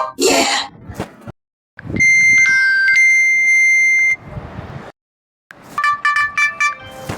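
Stock Micromax Canvas S4 notification tones played one after another: the end of one electronic sound, then a steady beep held for about two seconds, then after a short pause a quick run of short chiming notes near the end.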